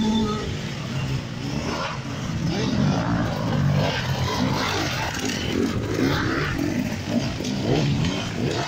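Several enduro dirt-bike engines as the bikes are ridden past one after another, the throttle opening and closing so the engine note keeps rising and falling.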